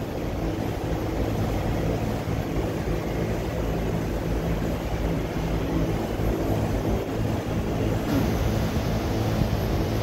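VRV/VRF central air-conditioner outdoor units running: a steady machine drone of compressors and condenser fans with a low hum.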